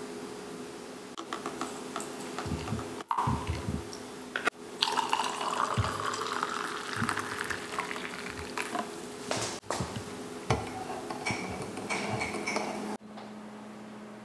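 Liquid poured into a ceramic mug of instant coffee, the pour rising slightly in pitch as the mug fills, with a few short clinks and knocks of cup and spoon around it.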